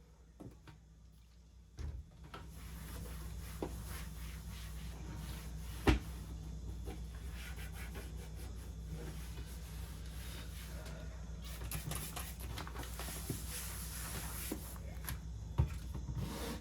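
Cleaning and handling inside kitchen cupboards: rubbing and scraping against wooden surfaces, with two sharp knocks, one about six seconds in and one near the end, over a steady low hum.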